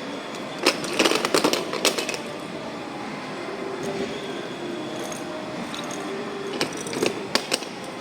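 Hard plastic toy pieces knocking and clicking as they are handled and pushed into a shape-sorting toy, with a quick cluster of clicks about a second in and a few more near the end.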